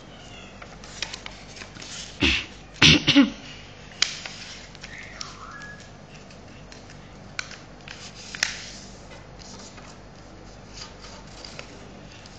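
A sheet of origami paper being folded and creased by hand: soft rustling with scattered sharp crinkles, the loudest cluster about two to three seconds in.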